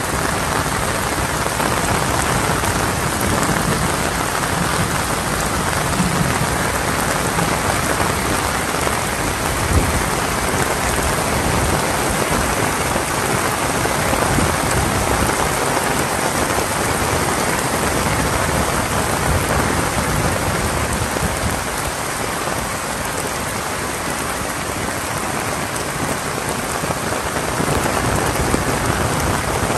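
Heavy rain falling steadily, a dense, even hiss of rain on the ground and surfaces.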